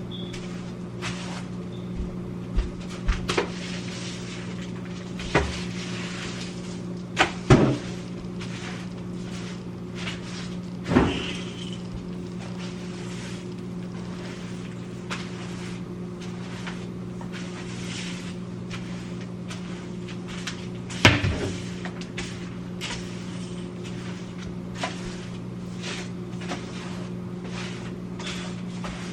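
Scattered knocks, clicks and clatters of containers and refrigerator parts being handled while the fridge is cleaned out, the loudest about seven seconds in and again about twenty-one seconds in. A steady low hum runs underneath.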